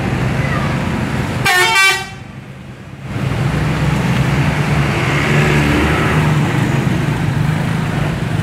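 A bus engine running amid road noise, with a short horn toot about a second and a half in. Right after the toot the sound drops away for about a second, then the engine and road noise come back.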